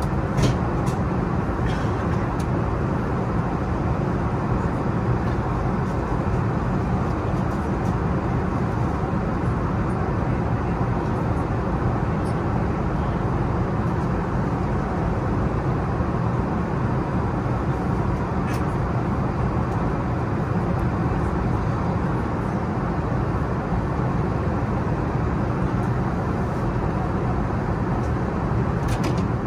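Steady, unbroken cabin noise inside an Airbus A380 airliner, a constant low drone of airflow and engines, with a few faint ticks near the start and again about two-thirds of the way through.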